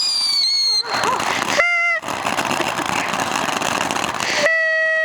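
A firework whistle gliding down in pitch dies out in the first second, followed by a steady hiss. A train horn gives a short toot about one and a half seconds in, then a long steady blast starting near the end.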